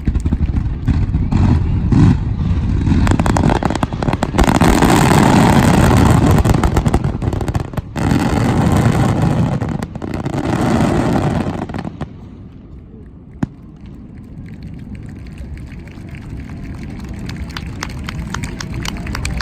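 Fireworks finale: a dense barrage of booming bursts and crackle. The barrage stops abruptly about twelve seconds in, leaving one sharp bang and quieter crackling.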